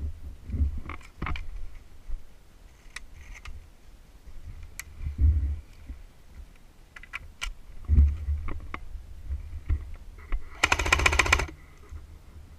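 Airsoft gun firing a rapid full-auto burst of about a second near the end, preceded by scattered single sharp clicks and low thumps.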